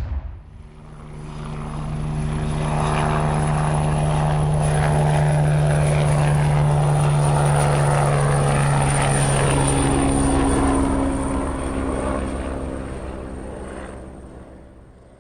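A steady engine-like drone with a thin high whine, like an aircraft engine, swelling in over the first couple of seconds, holding, then fading away toward the end.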